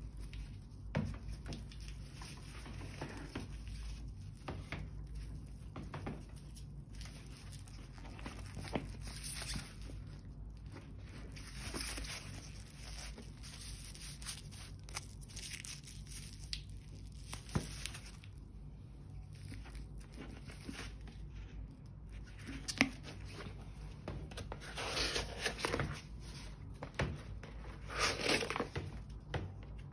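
Protective wrapping being pulled off a leather handbag's handle and strap and crinkled, with scattered light clicks and taps from handling the bag; louder crinkling near the end as the flap is opened onto the paper stuffing inside. A low steady hum runs underneath.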